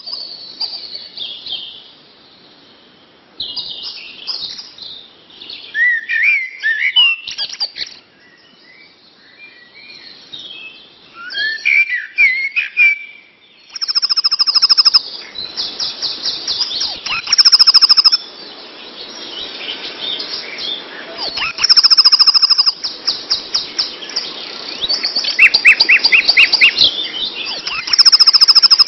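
Birds singing: scattered chirps and whistling notes at first, then from about halfway through louder, faster trills with high drawn-out notes that recur every few seconds.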